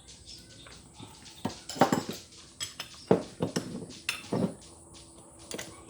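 Metal hand tools clinking and knocking against metal engine parts. There are several sharp, ringing clinks in bunches over about three seconds in the middle, typical of bolt-fastening work.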